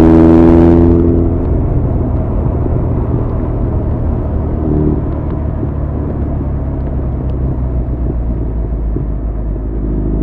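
Honda CB1100's air-cooled inline-four through an Arrow full exhaust system, being ridden. Its exhaust note is loud and strongly pitched for the first second or so, then eases to a lower, steadier running sound, with the pitched note coming back near the end.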